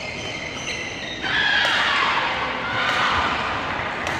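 Badminton doubles rally on an indoor court: sharp racket strikes on the shuttlecock about once a second, over shoe squeaks and hall noise that grow louder about a second in.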